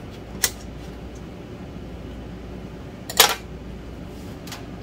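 Three sharp clicks or knocks from kitchen items being handled on the counter, the loudest a quick double knock a little past three seconds in, over a steady low hum.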